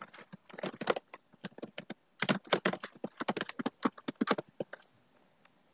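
Fast typing on a computer keyboard: a quick, uneven run of key clicks that stops a little before five seconds in.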